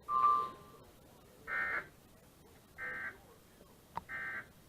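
Electronic beeps: one steady beep lasting under a second, then three shorter, higher chirps about 1.3 seconds apart.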